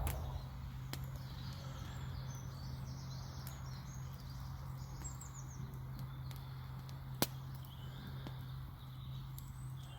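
Quiet rural ambience with faint, distant bird chirps and a steady low hum. There is one sharp click about seven seconds in.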